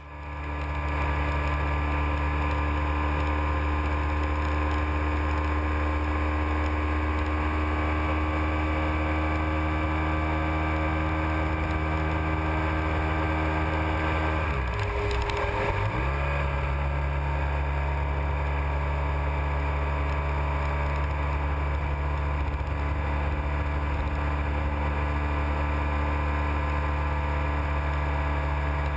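Motorcycle engine running steadily at cruising speed, picked up by a camera mounted on the bike. About halfway through the engine note drops away for a second or so, then settles back to a steady pitch.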